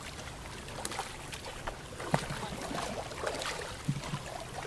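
Water splashing and lapping around a woven bamboo basket boat being paddled, with scattered light knocks.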